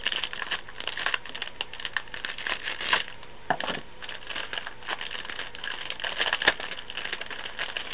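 Crinkly packaging being opened and handled to get at small craft rosebuds: a continuous rapid crinkling, with one sharp click about six and a half seconds in.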